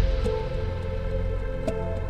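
Music: a sustained low drone with steady held tones, and a short note sounding about every second and a half.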